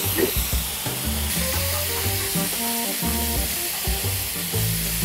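Loud, steady sizzling and hissing from a hot frying pan of chicken breast, with water just poured in to stop it burning and boiling off as steam. Background music with a bass line plays underneath.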